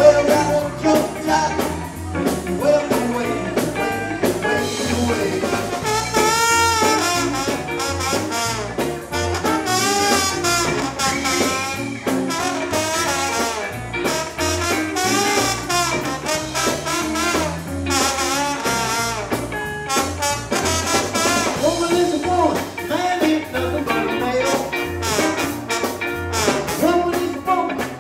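Live band playing old-style R&B and soul: a trombone carries the lead line over electric bass guitar and a drum kit.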